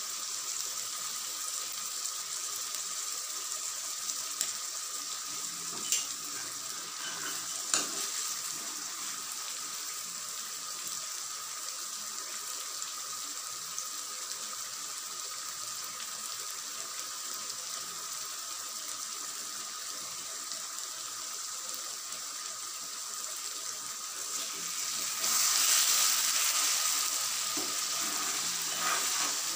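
Masala fish curry sizzling and bubbling steadily in a wok as it cooks down in its oil, with a few light clicks early on. The sizzle grows louder about 25 seconds in.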